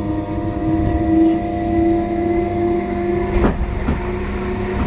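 British Rail Class 317 electric multiple unit heard from inside the carriage: a steady rumble with a motor whine whose pitch slowly rises as the train gathers speed. About three and a half seconds in, two sharp clicks of the wheels over a rail joint.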